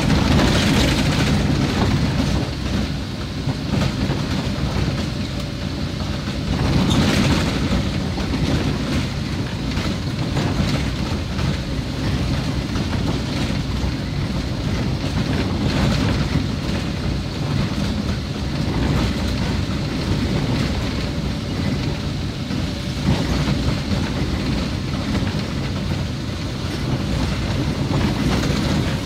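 Car driving on a wet, unpaved dirt road, heard from inside the cabin: a steady low rumble of tyres and engine with many small knocks from the rough surface.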